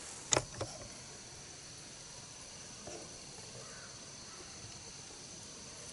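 Two sharp clicks from handled gear about half a second in, then quiet woodland background with a steady faint high-pitched tone.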